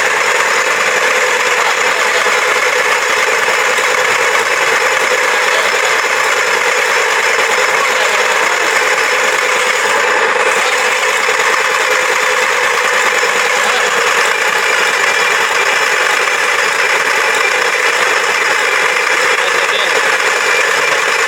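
A bare turbocharged diesel engine with open, unsilenced exhaust, running steadily and loudly at an even speed just after firing up.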